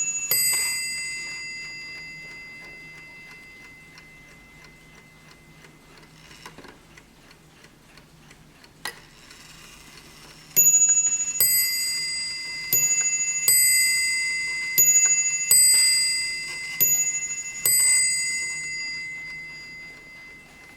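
WUBA mantel clock striking on two bells in high-low ding-dong pairs, each note ringing on and fading: one pair right at the start, then, after about ten seconds of ticking and a single click, four pairs in a row.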